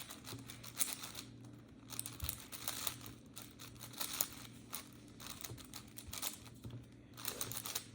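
A plastic 5x5 speed cube being scrambled by hand: rapid, irregular clicking and rasping of its layers turning.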